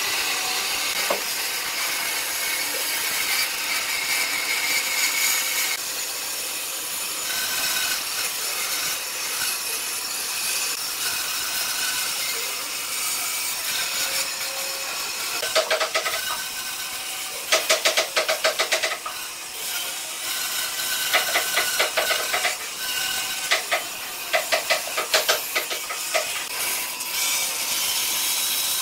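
Bandsaw blade cutting through thick round wooden slabs, a steady hiss of the blade in the wood. A little past halfway come bursts of rapid rattling clicks, the loudest part.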